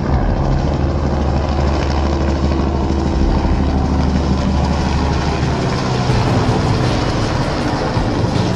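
Bell AH-1S Cobra attack helicopter flying past low: a steady rotor and turbine drone with a deep, even hum.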